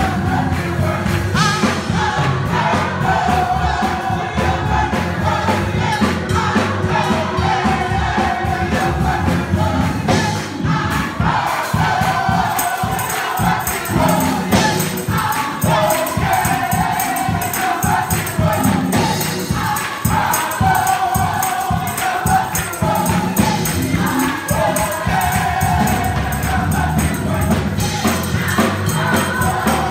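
Live gospel group singing in harmony over band accompaniment with a steady beat and tambourine, the sung phrases held for a few seconds at a time.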